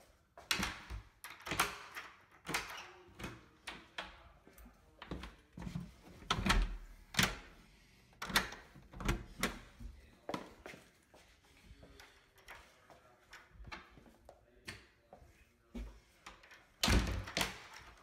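Interior door with a newly installed deadbolt being worked: a run of sharp clicks and knocks from the door, latch and bolt hardware, with a heavier thunk near the end.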